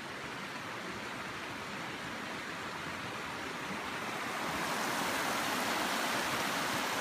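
Steady rushing noise, growing louder about four and a half seconds in.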